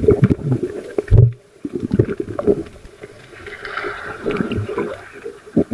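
Muffled water sloshing and splashing right at the microphone, with sharp knocks and rubbing from handling, and a heavy thump a little after a second in.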